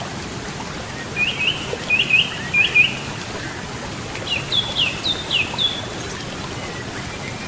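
A songbird chirping over the steady rush of a river: three quick pairs of rising chirps, then a short run of about five falling chirps a little later.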